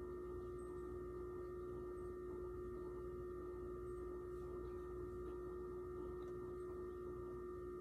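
A steady hum made of a few fixed pitches, unchanging throughout, with no other sound.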